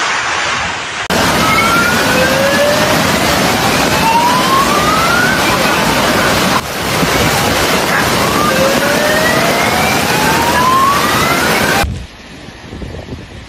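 Loud, even rushing roar of a flooded river, with a rising whine that climbs steadily for about three seconds, heard twice. It cuts off abruptly near the end to quieter gusting wind and surf.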